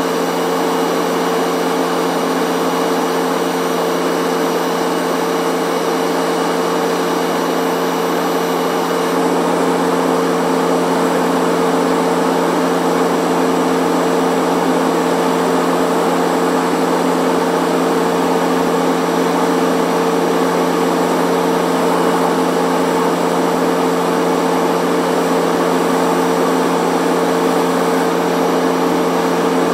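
Helicopter in flight, heard from inside the cabin: a steady, loud drone of engine and rotor with a low hum holding a few steady tones. It grows a little louder about nine seconds in.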